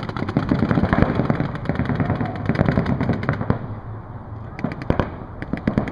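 Paintball markers firing in rapid strings of pops from several guns at once, thinning to scattered shots after about three and a half seconds.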